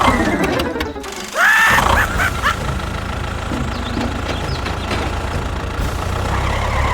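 A small motor running steadily, under a falling glide near the start and a short rising-then-falling swoop about a second and a half in.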